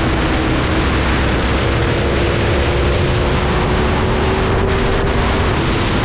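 Aprilia motorcycle accelerating at speed, its engine note climbing slowly under heavy wind rush on the helmet or bike-mounted microphone, then easing off about five and a half seconds in.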